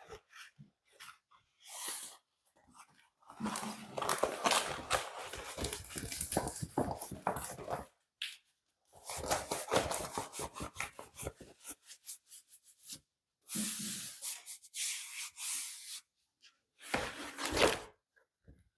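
Diamond painting canvas and its plastic wrapping rustling and crinkling in irregular bursts as it is handled.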